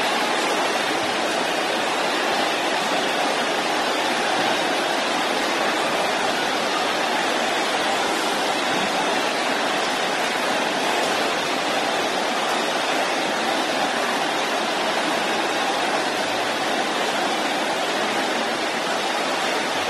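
A large congregation praying aloud all at once: a steady, dense wash of many voices in which no single voice stands out.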